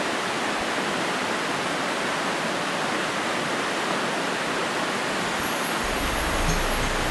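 Shallow mountain stream running over a pebbly bed: a steady rushing of water.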